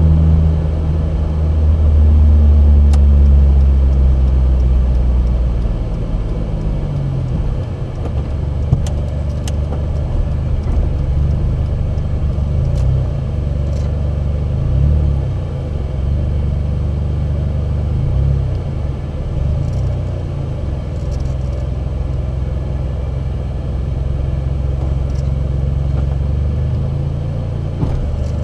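Small car engine running, its speed settling down over the first several seconds and then idling steadily.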